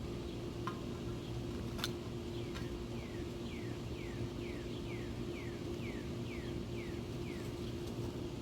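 A bird repeating a short falling note, about two a second for several seconds, over a steady low hum. One sharp click comes about two seconds in.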